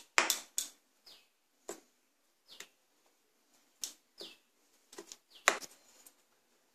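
Steel spoon clinking and scraping against a ceramic bowl while stirring thick batter: irregular taps, several with a short high squeak as the spoon drags on the bowl.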